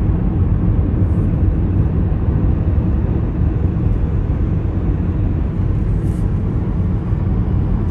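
Steady low rumble of a moving car: road and wind noise.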